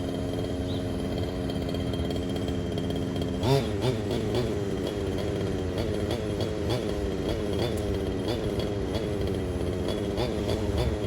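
RC car's small two-stroke engine idling steadily, then revved sharply about three and a half seconds in and blipped on and off about twice a second.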